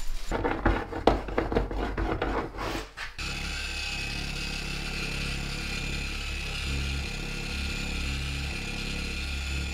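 Knocks and rustles of handling for about three seconds, then a random-orbital polisher with a foam pad starts and runs steadily, buffing a sealed concrete countertop.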